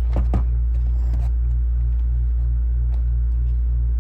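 Steady low hum with a throbbing pulse about four times a second, and a few short knocks in the first half second.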